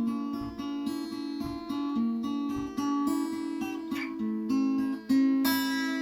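Solo acoustic guitar playing picked notes, then a louder strummed chord about five seconds in that rings on.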